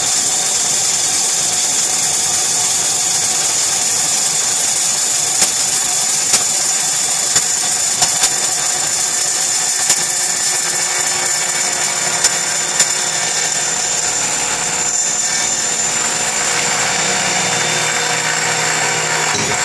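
Table saw and a corded electric drill running together: the saw blade cuts the outside of a wooden bowl blank while the drill spins the blank in a jig. Steady running with a high whine throughout, and several sharp ticks in the middle.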